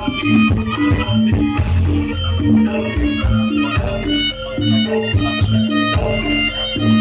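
Dance remix music with a repeating bass line, about two low notes a second, under quick, even percussion and a melody, played loud.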